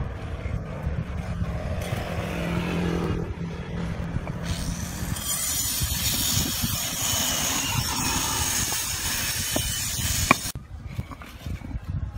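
A steady engine-like rumble with a loud hiss that cuts off suddenly about ten seconds in. Near the end come a few sharp knocks of concrete pavers being set down, the loudest just as the hiss stops.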